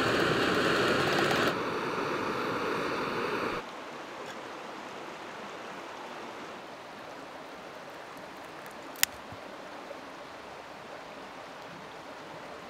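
A steady rushing hiss that is loud at first, drops a step after about a second and a half, and falls again to a quieter steady background just over three seconds in. About nine seconds in there is one sharp metal clink from the enamel mug and cookware as the coffee is made.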